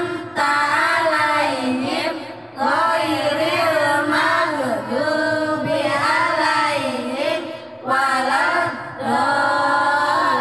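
Voices singing a melody in phrases a couple of seconds long over a steady held tone, with short breaks about two and a half and eight seconds in.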